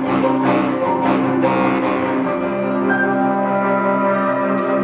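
Live chamber ensemble music: long held low notes from bass clarinet and bowed strings, with short attacked notes over them during the first couple of seconds that thin out into sustained tones.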